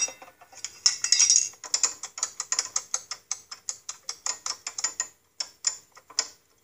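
Rapid, irregular metallic clicking, several clicks a second, from hand work on the loose clutch disc assembly of a Snapper rear-engine rider, like a ratchet or pawl. It is heard thinly through a phone's speaker, and it stops shortly before the end.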